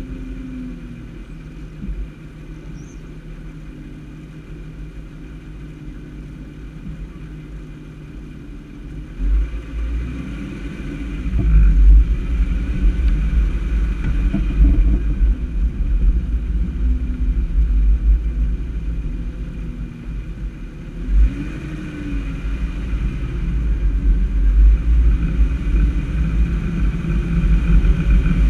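A vehicle running along a street, with its engine note rising and falling now and then under a heavy rumble of wind on the microphone; it grows louder about ten seconds in.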